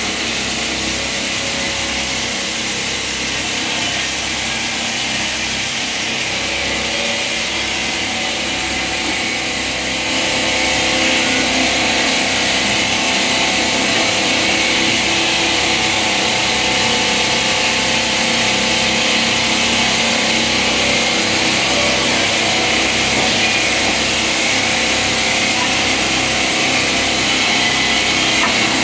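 Marble-cutting and edge-grinding machines running steadily on wet stone: a continuous high grinding hiss over motor noise, growing louder about ten seconds in.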